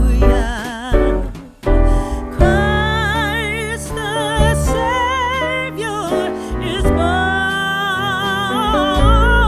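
Background music: a singer holding long notes with wide vibrato over a slow accompaniment.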